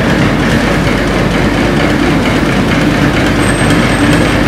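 Heavy diesel engine of a wheel loader running steadily under load as it pushes a dead wheel loader, with no changes in pace.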